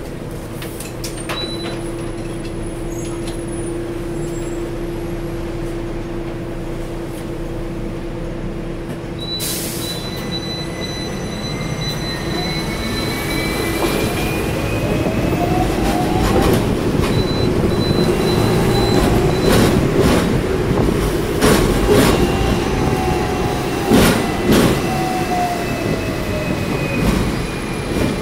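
Hong Kong double-decker electric tram running, heard from on board: a steady hum at first, then about halfway through it grows louder with a whine that rises and later falls as it gathers and loses speed. Several sharp clacks come from the wheels over the track in the second half.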